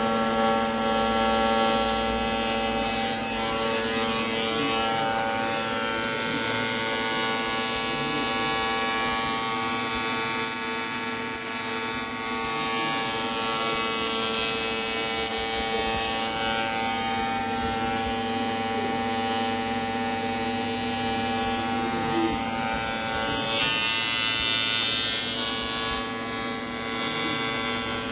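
Arc welding on an aluminium ladder: a steady electric buzz with a hiss over it, holding an even level and dipping briefly near the end.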